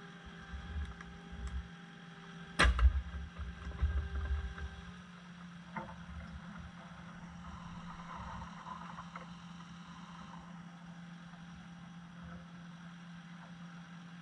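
Kubota SVL75 compact track loader's diesel engine running steadily, with one sharp, loud clunk about two and a half seconds in, followed by low rumbling and a few smaller knocks as the machine is rocked to seat a thrown track.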